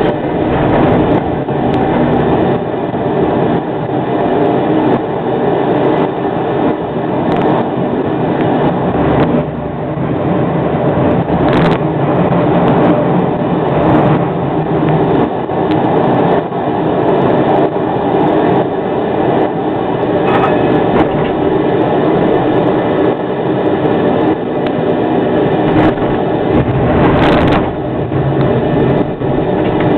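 Škoda 03T Anitra tram running along street track, heard from the driver's cab: a steady rumble of wheels and running gear, with two sharp clicks, one about twelve seconds in and one near the end.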